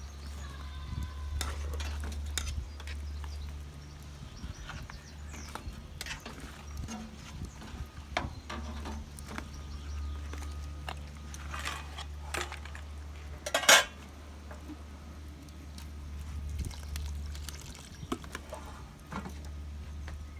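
Metal cooking utensils and pans clinking and scraping at a barbecue, in scattered short knocks, with one louder clatter about two-thirds of the way through, over a steady low hum.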